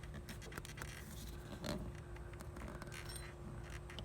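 Faint scraping and small clicks of the Honda Odyssey's rubber air intake hose being worked loose and pulled out by hand, over a steady low hum.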